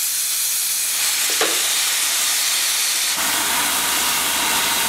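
Oxy-fuel cutting torch hissing steadily as its pure oxygen jet burns through steel, the material glowing at ignition temperature; the hiss turns fuller and lower about three seconds in.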